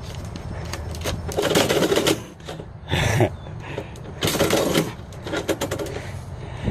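Door mail-slot flap rattling and clattering in several short bouts as a cat pushes mail back out through it.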